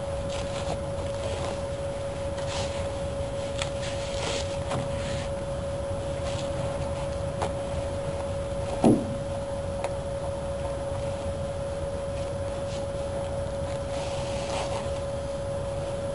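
Hands smoothing and rustling the cloth-backed vinyl roof cover against a car roof in short brushing strokes, with one sharp knock about nine seconds in. A steady hum runs underneath.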